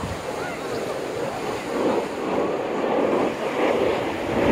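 Surf washing onto the beach, with wind buffeting the microphone.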